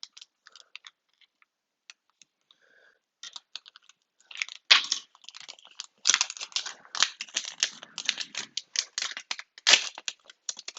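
Plastic packaging crinkling as it is cut open and handled: a few scattered clicks at first, then a dense run of short crackles from about three seconds in until near the end.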